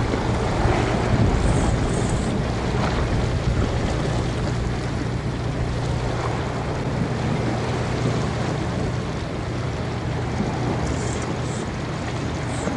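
Boat engine running steadily, a low hum under wind and splashing water.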